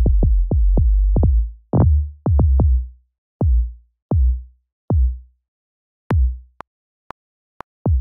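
808 bass notes from Logic Pro's Quick Sampler, each a deep boom with a quick pitch drop at the attack and a short decay, the sample cut short by a fade-out so notes don't run into each other. They sound one after another as the notes are dragged up through different pitches, several in quick succession at first and then spaced out. From about six seconds in, the 808 pattern plays back with light ticks about twice a second.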